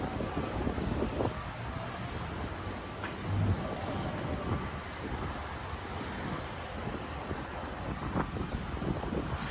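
Outdoor city street ambience: a steady low rumble with wind buffeting the microphone, scattered faint clicks, and a brief low thump about three and a half seconds in.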